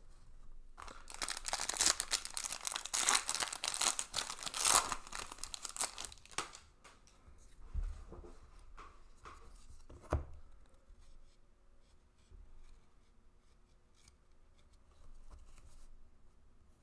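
A foil trading-card pack wrapper being torn open and crinkled for several seconds. Then quieter rustling and handling of cards, with a couple of soft thumps.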